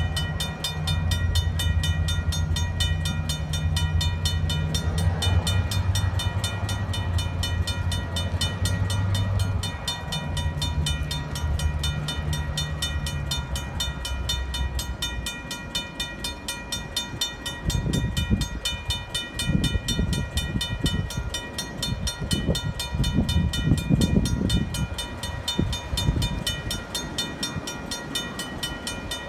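Railroad crossing bell ringing steadily with evenly repeated strikes, the crossing activated by a long switching train on the adjacent track. A diesel locomotive's low engine drone runs underneath through the first half, and irregular low rumbling comes in the later part.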